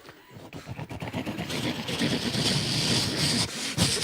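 A man making an engine-like rumbling sound effect with his mouth into a microphone, building up from quiet. Audience noise rises under it from about halfway through.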